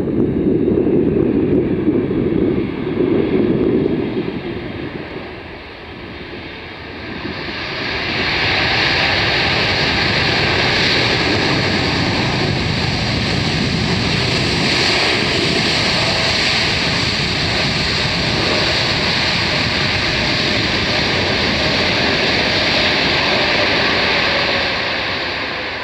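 Wind rumbling on the microphone, then an arriving jet airliner's engines swell in at about seven seconds and hold a steady rushing whine, easing off near the end.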